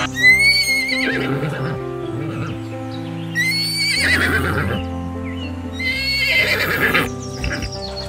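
A horse whinnying three times, each call high and wavering for about a second, over background music with long held notes.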